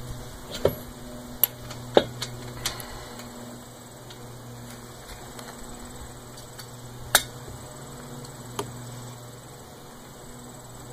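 Sharp metallic clicks and taps as pliers work a clamp and C-clip onto a cart wheel's axle hub, five in quick succession in the first three seconds, then one more at about seven seconds and a fainter one soon after. A steady low hum runs underneath.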